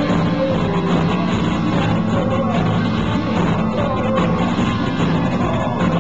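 Live rock band playing loudly, with a steady full-band sound throughout.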